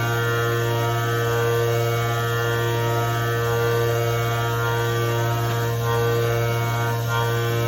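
CNC milling machine running a programmed cut, milling a small pocket; a steady hum of the spindle with several fixed tones and no change in pitch.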